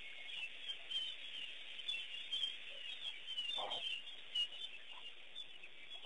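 Many small birds chirping continuously in a dense chorus, with one lower call standing out a little past halfway through.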